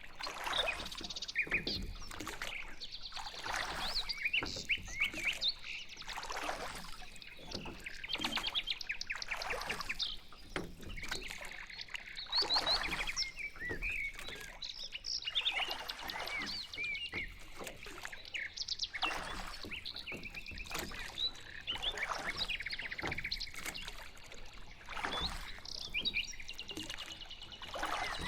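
Songbirds chirping and trilling continuously, many short calls overlapping. Under them, the water swishes of a pedal boat's paddles recur roughly every two seconds.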